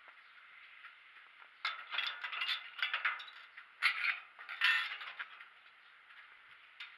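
Wrought-iron gate being unlatched and pushed open: a cluster of irregular metallic rattles, scrapes and clanks between about one and a half and five seconds in.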